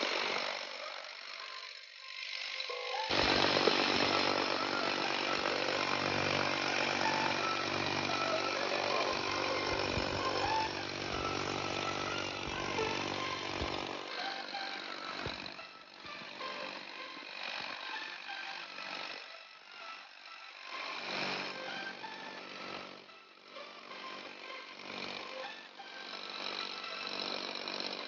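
Bosch GBH 18V-36C cordless brushless SDS-max rotary hammer drilling into concrete: after a short break about two seconds in, it hammers steadily, then after the middle it runs in shorter stretches with brief pauses.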